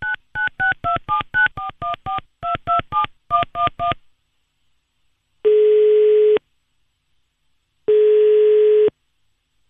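Telephone number being dialled: about fifteen short touch-tone (DTMF) beeps in quick groups. Then two ringing tones about a second long, a second and a half apart, as the called line rings.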